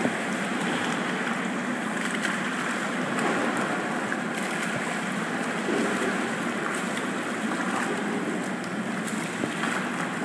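Steady wash of splashing water in an indoor swimming pool, from swimmers' freestyle strokes and kicks.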